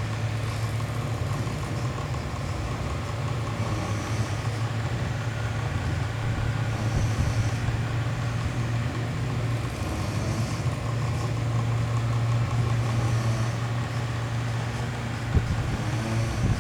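Miyako mini electric fan running with a steady low hum and a faint airy hiss that swells about every three seconds. A click comes near the end.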